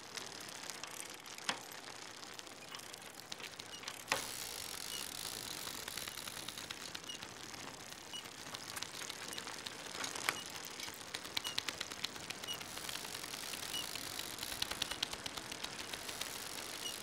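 Bonanza bicycle being ridden, its freewheel and chain ticking with many fast, fine clicks over a steady hiss. Sharper knocks come three times, about 1.5, 4 and 10 seconds in.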